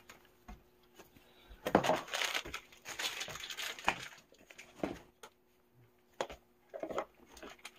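Paper and cardboard packaging crumpled and handled in irregular rustling bursts, with light clicks and taps of small items set down on a table. A faint steady hum runs underneath.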